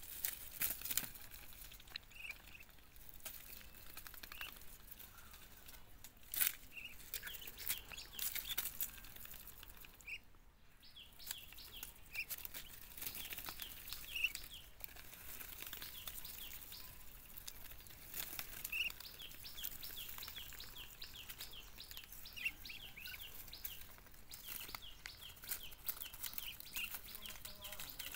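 Ducks pecking and tearing at leaves: frequent short clicks of bills snapping and leaves rustling, with short high bird chirps throughout.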